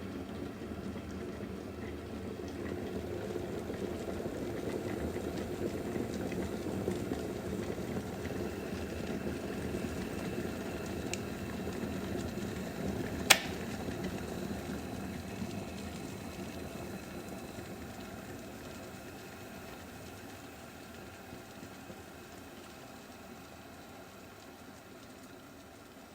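Water boiling in a kettle, a steady bubbling that swells over the first several seconds and then slowly dies away. A single sharp click comes about halfway through.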